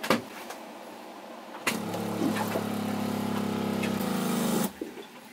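A boat's small electric freshwater pump starts nearly two seconds in and runs with a steady hum for about three seconds while the freshwater line is tested after a repair. Its tone shifts near the end, and then it cuts off.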